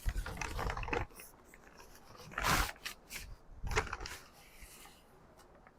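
Rustling and crinkling of a brown paper shipping bag being handled and opened, in a few short bursts, the loudest about halfway through.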